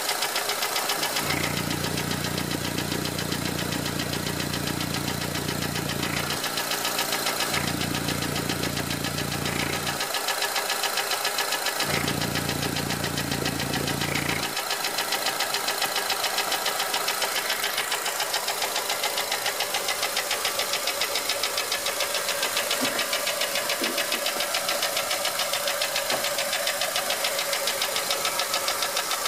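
Honda 2.4-litre i-VTEC four-cylinder engine idling with a steady, rapid ticking knock. A valve adjustment has not cured it, and the owner traces it to piston slap in cylinder number 1. A low hum comes and goes a few times in the first half.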